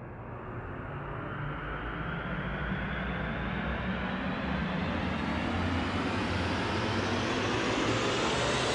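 Rising whoosh sound effect: a rushing noise that swells gradually louder and brighter over a low, steady rumble.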